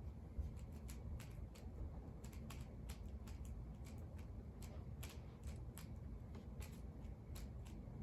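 Rubik's cube being turned quickly by hand: a run of irregular plastic clicks and snaps, several a second, as the layers turn, over a low steady hum.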